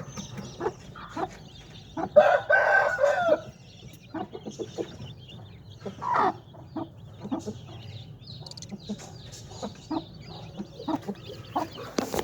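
Aseel chickens: chicks peeping and birds clucking throughout, with a loud crow about two seconds in lasting over a second, and a shorter loud call near six seconds.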